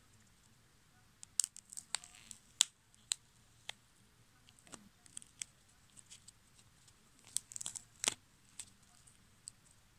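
Hardened varnish crust on a moldable-foam croissant figure crackling and splitting as fingers squeeze and pull it apart. Scattered sharp cracks begin about a second in, with a cluster near the end.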